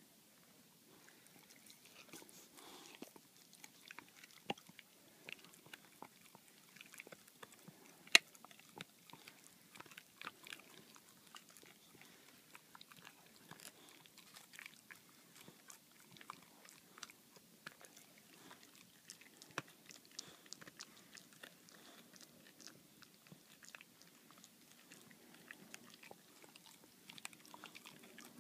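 Boxer dog gnawing and chewing a bully stick held in a hand, with irregular small clicks and crunches throughout; one sharper, louder click about eight seconds in.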